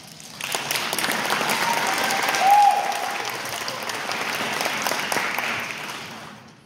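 Audience applauding, swelling in about half a second and fading out near the end, with a short rising-and-falling tone about two and a half seconds in that is the loudest moment.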